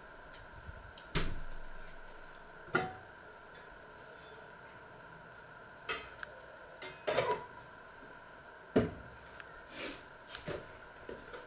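Kitchen clatter: a series of separate knocks and clinks of pots, pans and cupboard doors, the loudest about a second in, with a short ringing tail. A metal pan lid is set down on a pan on the hob past the middle, all over a faint steady hum.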